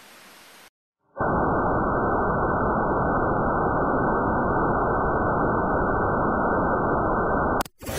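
Loud, steady static noise, dull and low, starting about a second in after a faint hiss and a short silence, then cutting off abruptly near the end.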